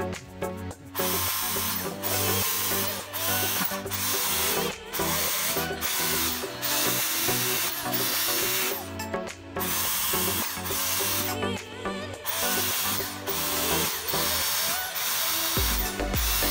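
Electric drill with an 8 mm bit boring holes through the wall of a plastic bucket, in runs of one to three seconds with short pauses between holes. Background music plays underneath.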